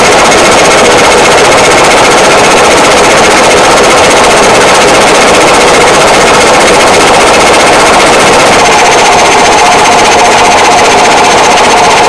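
Caterpillar D7 bulldozer's turbocharged diesel engine running loud and steady, with a thin, high turbo whistle over the engine noise. The sound changes about nine seconds in.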